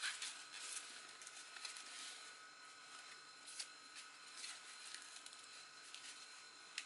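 Faint rustling and light scratchy clicks of a foldable fabric flash reflector being unfolded and handled by hand, over a steady low hiss.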